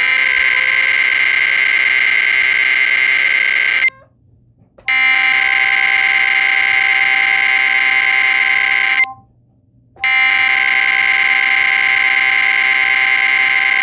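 Emergency Alert System SAME header: loud screeching digital data tones sent three times, each burst about four seconds long, with about a second of silence between them.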